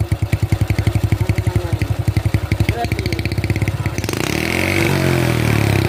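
Honda Super Cub single-cylinder four-stroke engine idling with a rapid, even putting through an exhaust whose muffler has been gutted to give a GL-style 'kleper' note. About four seconds in it is revved briefly, rising in pitch and falling back.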